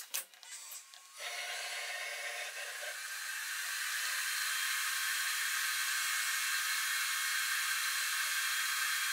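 A few clicks, then the Bridgeport Torq-Cut 22 CNC mill running as its axes are jogged: a steady whirring hiss that starts about a second in. A lower hum in the sound drops out about three seconds in, and the rest holds steady.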